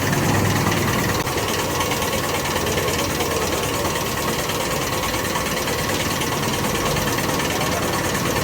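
A motor running steadily, with an even hiss over it.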